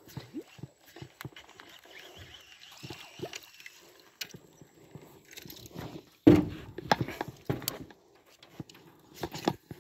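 Irregular knocks and clunks on a small boat's hull as it is paddled and gear is handled, with light water sloshing; one heavy thump about six seconds in, followed by several sharper knocks.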